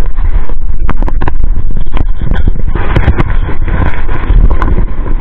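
Wind buffeting the microphone in a loud low rumble, with irregular clacks and crunches of footsteps on a rocky, pebbly shore.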